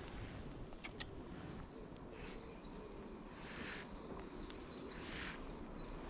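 Faint outdoor ambience with a few short, faint high chirps and a single sharp click about a second in.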